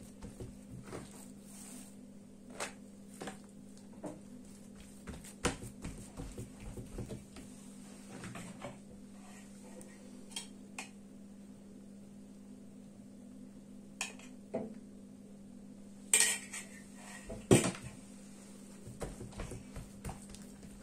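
Scattered light kitchen taps and clinks, with two louder clatters about three quarters of the way in, over a steady low hum.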